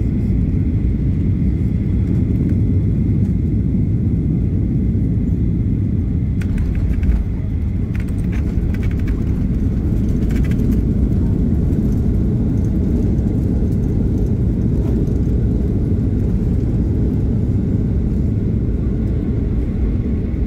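Deep, steady cabin rumble of a Boeing 737-800 rolling down the runway after landing, heard from inside the cabin, with brief rattling clatters about seven seconds in and again around eight to eleven seconds.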